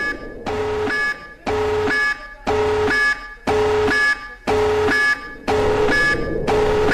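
Emergency alert alarm tone: a buzzy, multi-tone beep repeating about once a second, each beep a little over half a second long.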